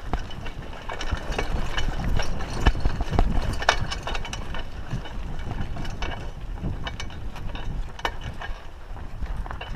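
Raleigh Ascent mountain bike rolling over a dry dirt and sand trail: a steady low rumble from the tyres, with frequent clicks and rattles from the bike as it goes over bumps.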